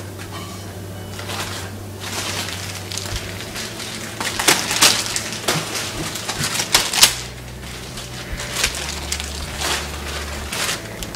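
Camera handling noise: irregular clicks, knocks and rustles as the camera is swung and carried about, over a low steady hum that drops out for a few seconds midway.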